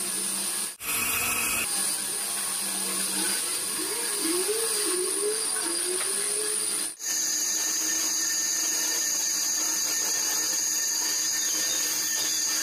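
Metal lathe running steadily with a high machine whine while a threading tool cuts a tapered thread into a metal shaft. The sound drops out briefly about a second in and again near seven seconds, and the pitch of the whine changes after each break.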